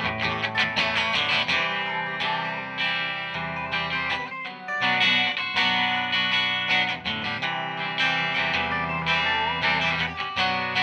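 Guitar music: plucked and strummed guitar notes ringing over sustained chords.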